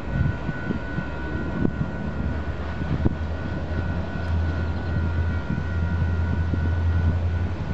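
Low, steady drone of approaching Union Pacific diesel freight locomotives, growing slightly louder, with gusts of wind on the microphone.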